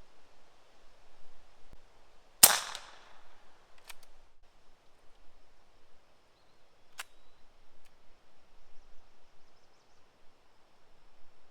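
A single shot from an AirForce TalonP .25-calibre PCP air pistol, a sharp crack with a brief ring-out about two and a half seconds in. Two faint clicks follow, one about a second and a half after the shot and one about three seconds after that.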